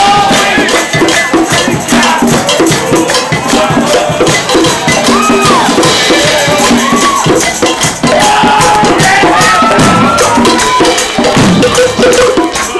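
Unplugged group jam: several voices singing together over strummed acoustic guitar and hand percussion, keeping a steady rhythm.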